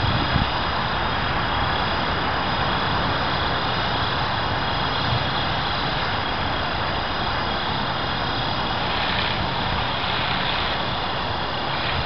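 Align T-Rex 450 electric RC helicopter hovering, its rotors and motor making a steady whir, with wind rumbling on the microphone.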